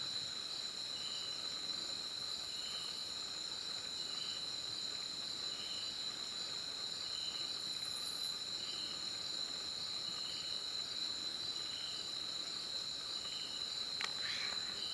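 Night insects, crickets among them, calling: a steady high-pitched trill, with a second, lower chirp repeating about every second and a half. A couple of brief clicks sound near the end.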